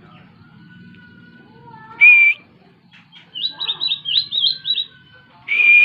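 Pied bushchat (decu) singing: a loud short whistle, then a quick run of about seven high twittering notes, then another loud whistle near the end.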